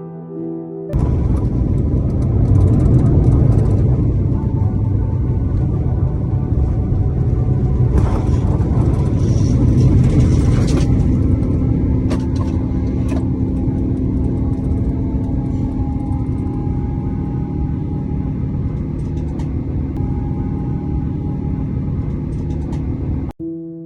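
Aircraft noise: a loud, steady rumble with a steady hum. It starts abruptly about a second in and cuts off suddenly near the end.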